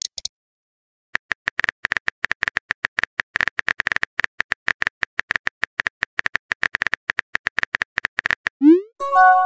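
Simulated phone-keyboard typing: a quick, irregular stream of short tapping clicks, each with a slight ring. Near the end a short rising swoosh and a chime of a few steady tones mark a new text message appearing.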